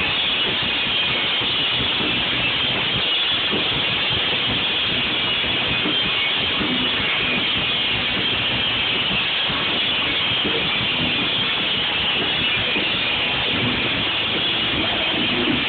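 Live punk rock band playing loud on stage, guitars, bass and drums blurred into a dense, distorted wall of sound by an overloaded phone microphone.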